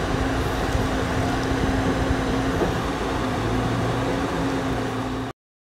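A boat motor running steadily with a low hum, which stops abruptly about five seconds in.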